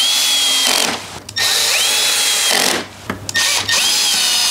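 Cordless electric screwdriver driving screws into a motorcycle's plastic nose panel: the motor whirs in three runs, each rising in pitch and then holding, with short pauses between.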